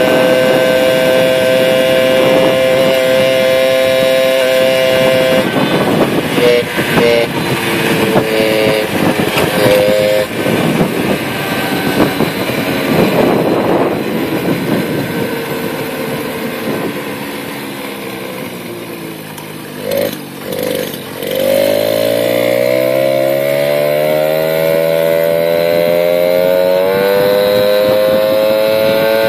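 Peugeot 103 moped's 50cc single-cylinder two-stroke engine with an unrestricted exhaust, running at steady high revs and then unevenly. About two-thirds of the way through the revs fall away as it slows, with two short blips of throttle. It then climbs back up in a long rising note and holds steady near the end.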